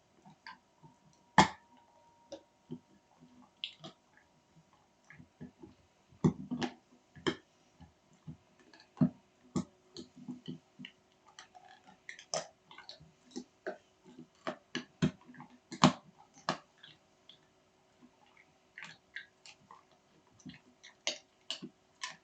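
Scattered sharp clicks and soft taps at irregular intervals, over a faint steady hum.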